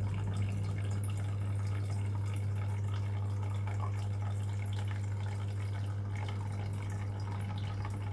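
Water trickling and dripping over a steady low hum.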